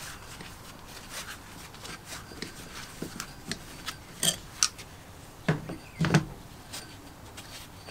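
Pliers and a thin metal rod working against the fan hub of a rusty cast-iron forge blower: light rubbing and scraping with scattered sharp metal clicks and knocks, loudest between about four and six seconds in.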